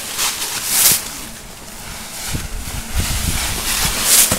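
Dry fallen leaves rustling and crunching as children run through them and toss them, with two loud swishes, about a second in and near the end. Wind rumbles on the microphone in the second half.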